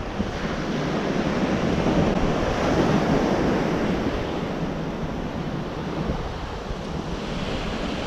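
Ocean surf breaking and washing up the beach, with wind buffeting the microphone.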